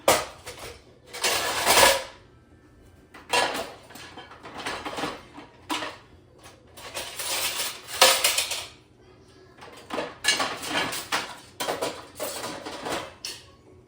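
Crockery and cutlery clattering in irregular bursts as they are set into a dishwasher's racks, with a few sharper knocks of dishes against each other or the rack.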